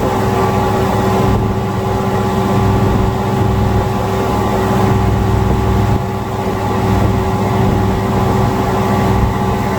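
2005 Evinrude 225 V6 two-stroke outboard running steadily, with the engine knock the owner wants diagnosed.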